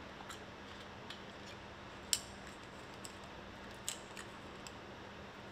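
Metal lid and screw band of a home-canned mason jar clicking as they are twisted and worked open by hand: a few short, sharp clicks, the loudest about two seconds in.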